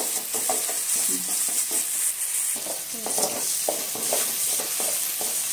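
Chopped tomatoes, onions and garlic sizzling as they fry in oil in a metal kadai, the tomatoes softening. A wooden spatula scrapes and stirs them against the pan in repeated short strokes.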